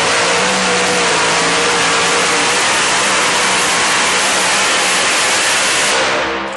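A two-wheel-drive pulling truck's engine running flat out under full load as it drags the weight-transfer sled, front wheels lifted off the dirt. The sound is loud and steady with a slightly wavering pitch, dropping away near the end.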